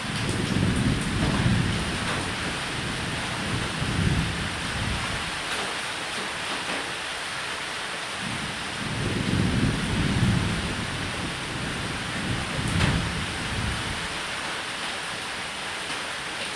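Steady rain hissing, with low rolls of thunder rumbling and swelling about four times.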